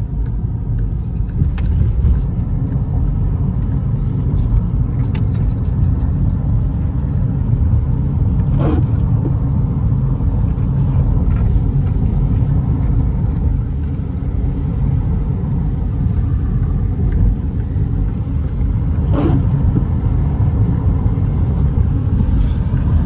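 Steady low rumble of a car's engine and tyres on wet pavement, heard from inside the cabin while driving.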